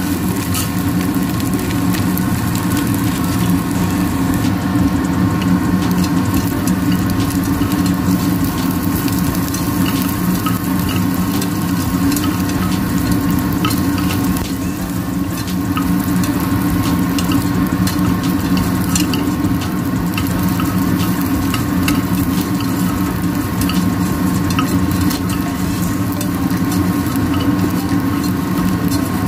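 Small dried anchovies frying in oil in a stainless pot, sizzling steadily with scattered crackles, as a wooden spatula stirs and scrapes them against the metal. A steady hum runs underneath.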